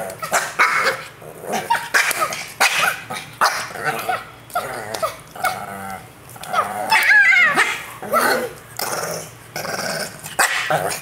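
Small dog growling and barking in short, repeated bursts, with a longer wavering growl about seven seconds in; the dog is angry at being teased.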